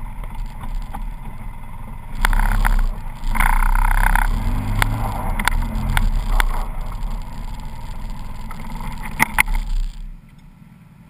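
Polaris RZR side-by-side running on a rough snowy track, its engine rumbling, louder for a couple of seconds early on, with sharp knocks and rattles. About ten seconds in the engine sound drops away as the machine stops.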